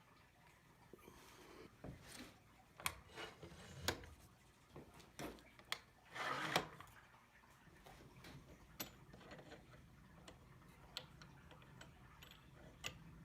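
Light handling noises: scattered sharp clicks and knocks, with a short rustling scrape about six seconds in. No saw motor is running.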